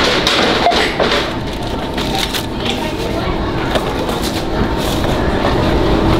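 Busy shop checkout ambience: indistinct background voices and a steady hum, with occasional short clicks and rustles of handling.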